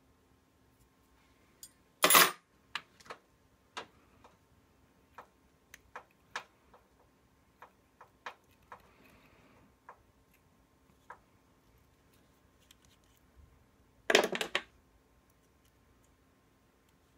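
Handling noise of a Dremel rotary tool as its accessory bit is changed: scattered sharp plastic and metal clicks and taps, with two short, louder scraping rustles about two seconds in and near the end. A faint steady hum runs underneath; the tool's motor is not running.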